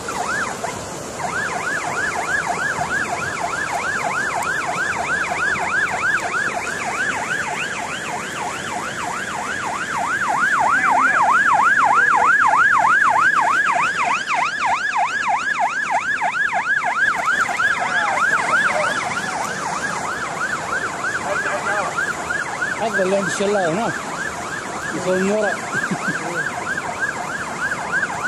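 Electronic emergency siren in a fast yelp, its pitch sweeping up and down several times a second, swelling louder for a few seconds in the middle. Underneath it, the steady rush of floodwater.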